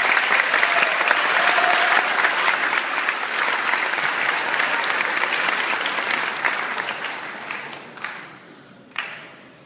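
Audience applauding, the clapping dense and loud at first, then dying away over the last few seconds to a few last scattered claps.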